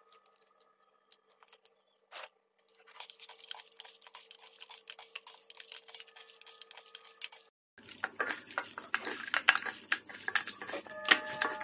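Hands mixing raw duck pieces with spice powders in a metal bowl: a rapid run of soft, wet clicks as the meat is kneaded. It gets louder and busier after a cut about eight seconds in.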